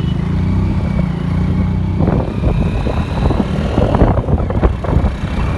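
Motorcycle engine running steadily at cruising speed. From about two seconds in, gusty wind buffeting on the microphone rushes over it.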